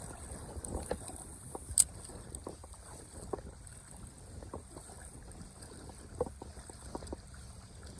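River water lapping and splashing around a wading angler, with scattered small irregular splashes and one sharp click about two seconds in.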